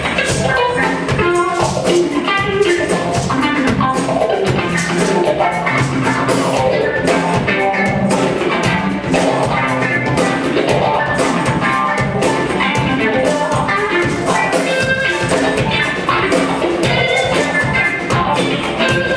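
Live band playing a song, with drum kit and electric guitars keeping a steady beat.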